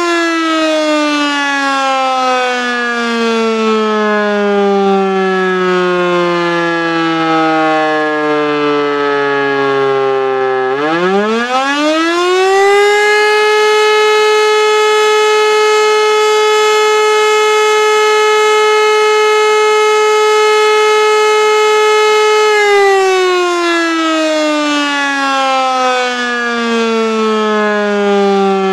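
E57 electromechanical siren on a high mast sounding the fire-alarm test signal (Feueralarm). Its pitch winds down steadily, then about ten seconds in it spins back up to a steady wail held for about ten seconds, and winds down again near the end.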